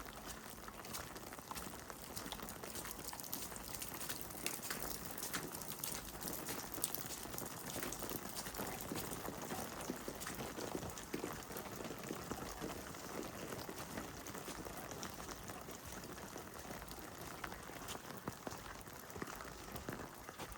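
Heavy rain falling steadily, a dense patter with many sharp individual drop ticks.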